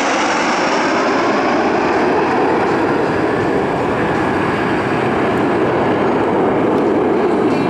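Alpha Jet display jets flying past, a loud steady jet engine noise, with a high whine sliding down in pitch at the start.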